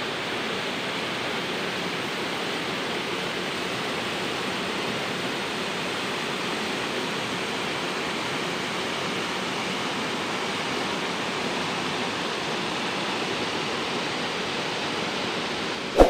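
Waterfall spilling into a rock plunge pool, a steady, even rush of falling water.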